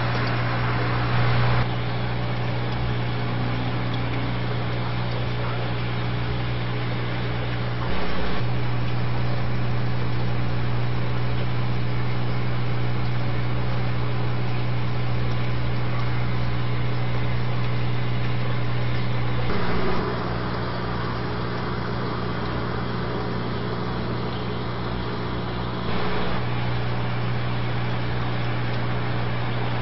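Steady low electrical hum with a constant hiss from running aquarium equipment, its level stepping up and down a few times.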